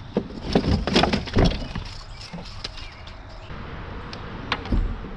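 A quick flurry of sharp knocks and clatter, then one more knock near the end: things striking the hard hull of a fishing kayak while a freshly caught fish is handled.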